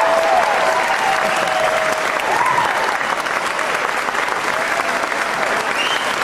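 Audience applauding, with a few voices calling out over it.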